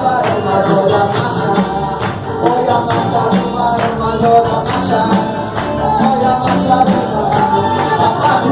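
Live church worship band playing with voices singing the melody over a steady percussion beat.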